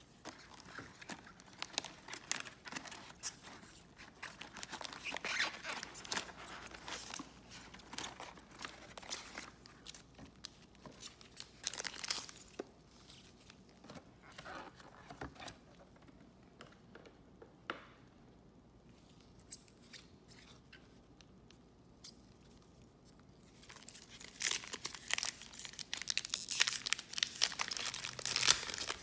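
Foil trading-card pack wrappers crinkling as the packs are handled and stacked, with a quieter stretch in the middle. Near the end, louder crinkling and tearing as a pack's wrapper is ripped open.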